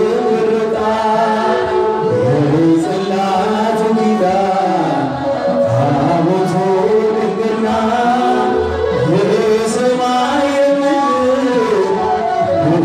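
Singing of an Ethiopian Orthodox Tewahedo mezmur: a slow hymn melody that rises and falls in long, gliding phrases of about two seconds each.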